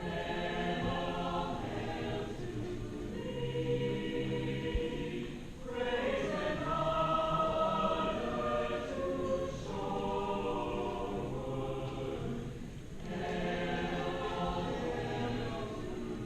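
High school choir singing the school alma mater in slow, sustained chords, in long phrases with short breaths about six and thirteen seconds in.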